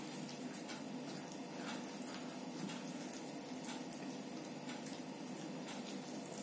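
Chewing and mouth sounds of eating by hand: soft, irregular clicks and smacks over a steady background hum.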